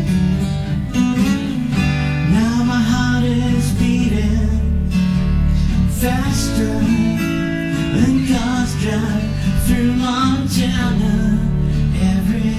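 Acoustic guitar playing, with a man's voice singing a melody over it from about two seconds in.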